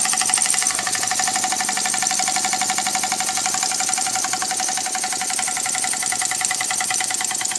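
Small model vertical steam engine with a spool valve, running on compressed air: a rapid, even beat of exhaust puffs and mechanical clatter that holds steady.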